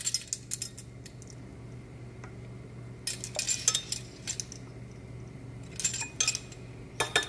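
Set of metal measuring spoons on a ring clinking and jangling against each other in several short bursts of clicks.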